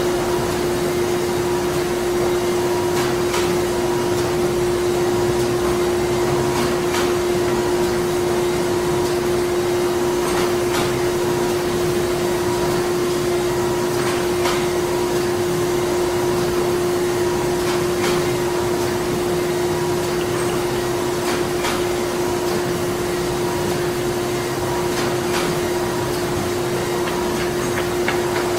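Printing-plant machinery running continuously: a steady, even mechanical noise with a strong constant hum, broken by scattered, irregular clicks and knocks.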